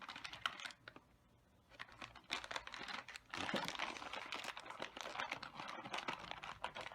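Plastic packaging crinkling and clicking as a boxed figure and its plastic parts are handled and unwrapped, with irregular crackles, a short lull about a second in, then near-continuous crinkling from about three seconds in.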